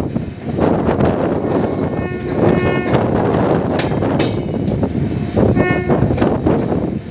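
Passenger train running, heard from aboard: a steady rumble and rattle, with a short horn sounding about two seconds in and again briefly near six seconds.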